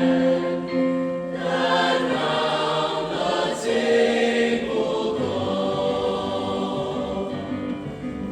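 A choir singing, holding long chords that change every second or two.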